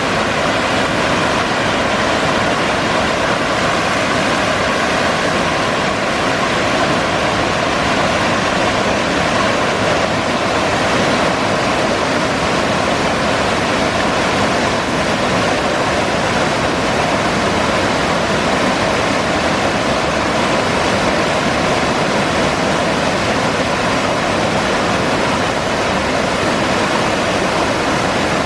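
Waterfall: a steady, loud, unbroken rush of falling water.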